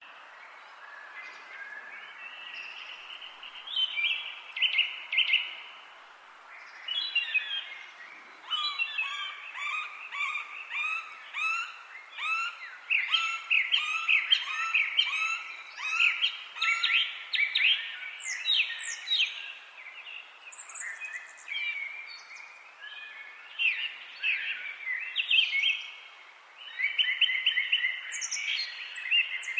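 Forest songbirds singing, several overlapping songs of repeated chirps, whistles and trills, some phrases higher and thinner than others, over a faint steady background hiss.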